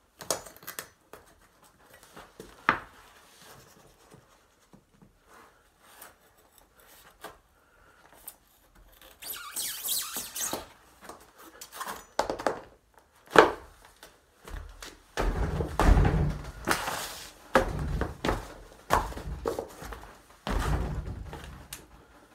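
A knife scraping and sawing at a sneaker, with a sharp knock a few seconds in. Then, from about two-thirds of the way through, a run of heavy thuds and rustling as sneakers stamp and kick on the floor.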